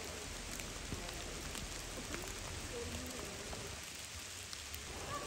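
Steady rain falling through forest trees, an even hiss with scattered sharp drop hits.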